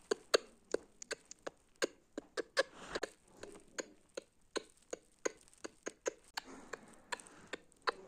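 Irregular sharp clicks and taps, two to four a second, with no engine sound.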